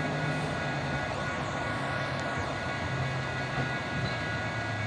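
Caltrain diesel locomotive approaching at speed without stopping, its engine a steady drone.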